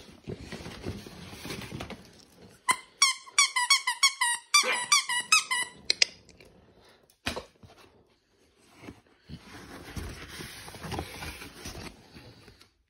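Squeaker in a plush duck dog toy squeezed rapidly, about a dozen sharp high squeaks in a row over some three seconds. Softer rustling and handling noise comes before and after.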